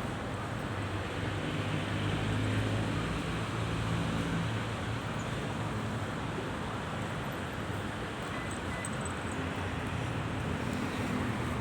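Steady low rumble with a faint engine-like hum, like road traffic or a running vehicle.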